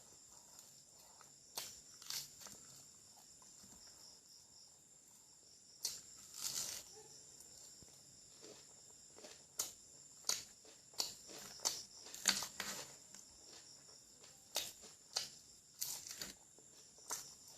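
Close-miked eating sounds: wet chewing, lip smacks and mouth clicks from someone eating curry and rice, coming as short sharp sounds, sparse at first and more frequent in the second half, over a faint steady high-pitched hum.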